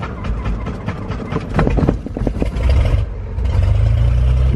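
The Cessna 210A's six-cylinder Continental engine starting, heard from inside the cockpit. It fires unevenly for the first couple of seconds, then settles into a steady run from about three and a half seconds in.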